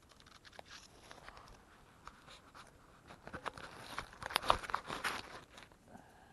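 Crackling and rustling of dry leaf litter and twigs, with handling knocks as the camera is set down on the forest floor. The crackles grow denser and louder in the middle of the stretch.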